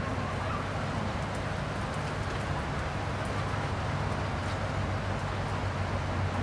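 Steady low hum under an even background noise, with a few faint ticks; no distinct sound from the cats stands out.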